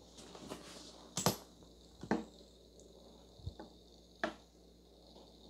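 A few separate sharp taps and knocks, four or five spread over several seconds, against a faint quiet background.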